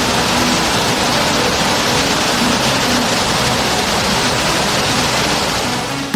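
Steady, loud rush of water, as from a waterfall or fast river, with faint background music notes underneath.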